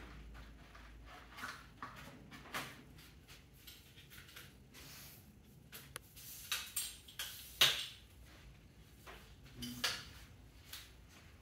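Scattered clicks, knocks and light rattles from handling a moisture meter's extension pole and its accessories, the sharpest knock about two-thirds of the way through.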